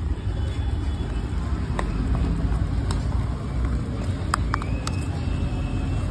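Steady low background rumble with a few light clicks of a steel spoon scraping and tapping a steel chutney tin and a foil plate.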